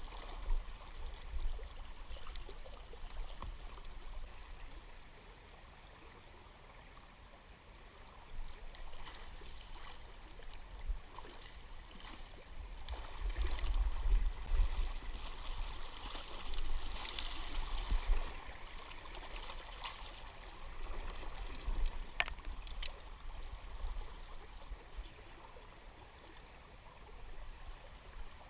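River water flowing and gurgling, with irregular low rumbles on the microphone. Two sharp clicks come about half a second apart, roughly three-quarters of the way through.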